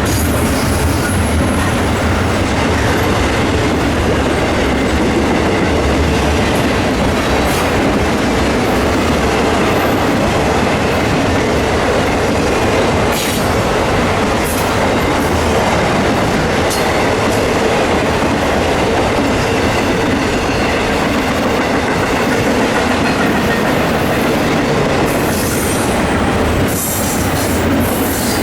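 Train cars rolling past, a steady loud rumble of wheels on rail with occasional sharp clicks from the wheels over the rail joints.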